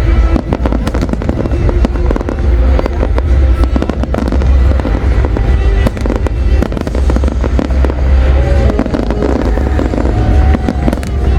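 Fireworks display going off non-stop: a dense run of bangs and crackles over continuous deep booms, with music playing along.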